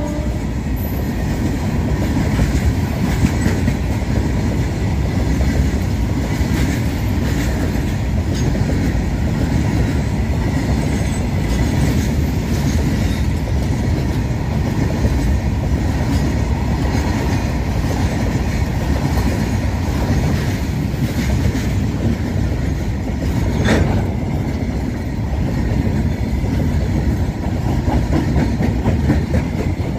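Freight wagons of a goods train rolling past at speed: a steady rumble of steel wheels on rail with rapid clickety-clack over the rail joints, and one sharp clank about 24 seconds in.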